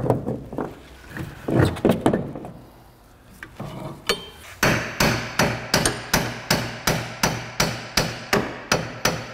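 A few irregular metal clanks of a pry bar working against the rear suspension, then from about halfway a steady run of hammer blows on the metal suspension parts, about three a second.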